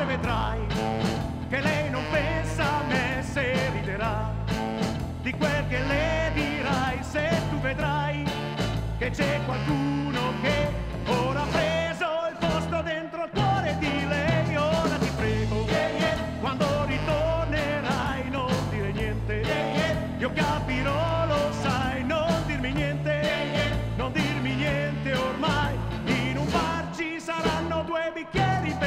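Beat-style rock and roll band recording playing: a steady bass and drum beat under a lead melody that wavers with vibrato.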